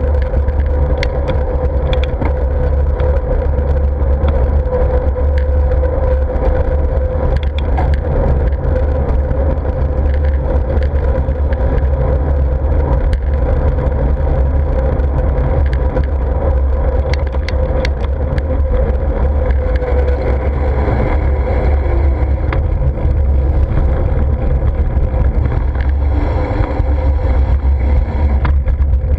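Wind rumbling steadily on an action camera's microphone during a bicycle ride, with a steady mid-pitched hum and scattered small clicks and rattles.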